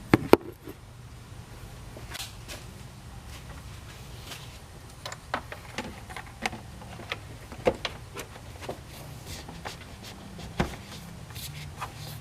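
Irregular light knocks and clicks as an air intake tube is worked back onto a truck's throttle body and air box, with two sharper knocks at the very start. A low steady hum lies underneath.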